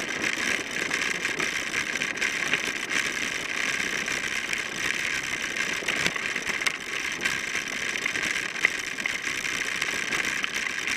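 Steady hiss of bicycle tyres rolling fast over a gravel trail, with a light mechanical rattling and clicking from the bike.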